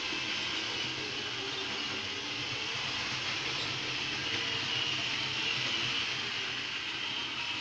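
Model train of a CC 72001 diesel locomotive running on its layout track: the steady whirr of the locomotive's small electric motor and gearing, with the wheels rolling over the rails.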